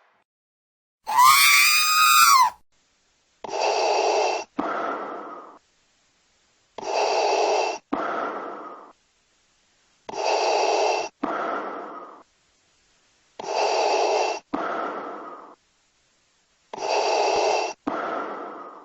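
Darth Vader's respirator breathing from Star Wars: a mechanical, hissing inhale followed by a fading exhale, repeating evenly about every three seconds, five breaths in all. It is preceded about a second in by a short, loud, warbling electronic sound effect.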